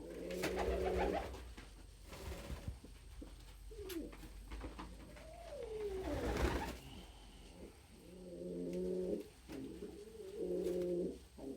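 Domestic pigeons cooing in several low, throaty bouts, with short gliding calls between them and a brief rustling swish about six seconds in.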